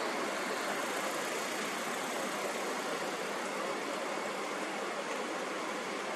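Steady, even rushing noise with no rhythm or breaks, the constant noise bed of a sleep-sound track.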